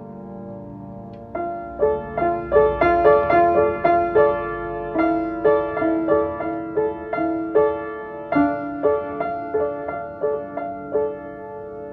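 Solo piano: a soft held chord, then from about a second in a slow melody of single struck notes, two or three a second, over sustained low notes, thinning out near the end.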